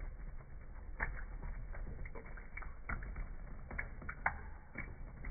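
Thin stream of water from a kitchen faucet falling into a stainless steel sink, a low steady rumble, with irregular clicks and drips a few times a second as a cat laps at the stream.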